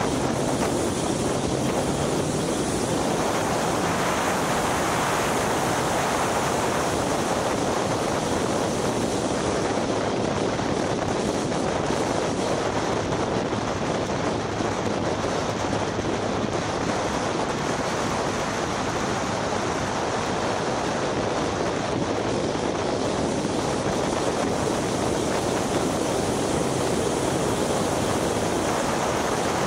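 Steady rush of wind buffeting the microphone of a camera on a car at speed, with the car's engine faintly audible underneath.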